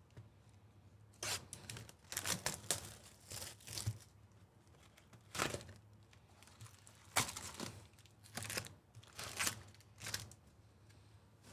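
A 2024 Topps Chrome Jumbo baseball card box being torn open, then its foil packs crinkling as they are pulled out and stacked: a series of short tearing and rustling bursts.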